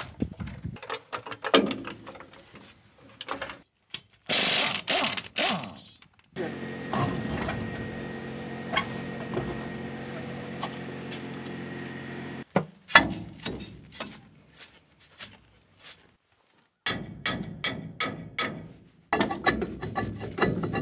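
Hand socket ratchet clicking in runs of quick strokes, mixed with metal clanks and knocks, as hardware on a truck's rear wheel is worked loose. For several seconds in the middle a steady hum runs under the clicking.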